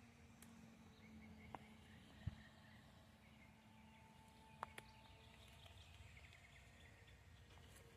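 Near silence: faint outdoor background hum, broken by a few soft clicks about a second and a half, two and a quarter, and four and a half seconds in.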